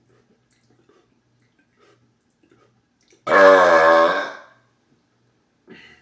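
A man's single loud, pitched burp about three seconds in, lasting a little over a second before fading, done without exhaling first.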